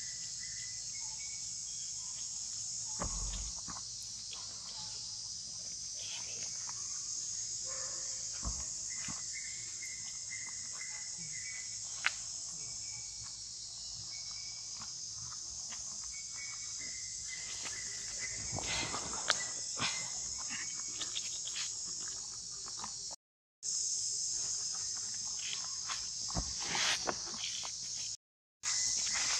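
Steady, high-pitched drone of an insect chorus, with scattered light rustles and clicks as monkeys move about.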